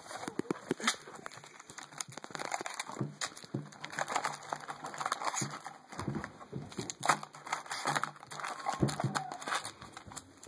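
Foil trading-card booster packs crinkling and cards being handled, a busy run of short crackles and clicks.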